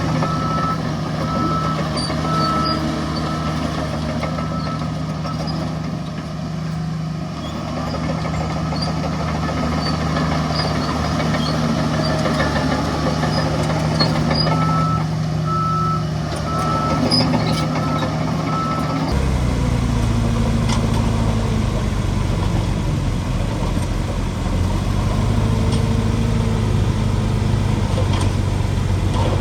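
Heavy diesel engines of earthmoving machinery running steadily, with a reversing alarm beeping in a regular on-off pattern near the start and again before a cut about two-thirds of the way through. After the cut, a lower diesel engine runs with its pitch rising and falling under load.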